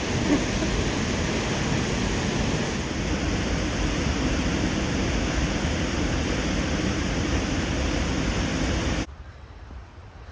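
High Force waterfall on the River Tees: a steady, loud rush of falling water that cuts off abruptly about nine seconds in.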